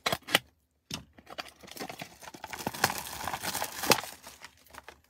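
A box cutter slicing the plastic shrink wrap on a trading-card box, two sharp clicks, then the wrap crinkling and tearing in a dense run of crackles as it is pulled off, from about a second in until near the end.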